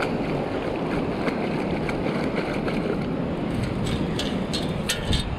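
Wind buffeting the microphone over the rush of shallow surf washing around the feet. About three and a half seconds in comes a short run of sharp clicks and rattles as sand and shell bits are shaken through a perforated metal beach scoop.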